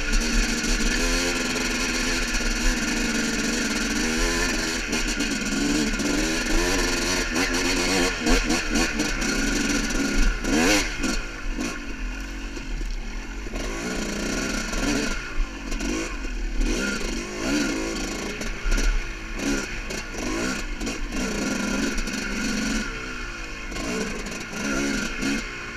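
Yamaha YZ250 two-stroke single-cylinder dirt bike engine revving up and down with the throttle at low trail speed, with sharp clattering knocks over rocky ground, one louder about ten seconds in.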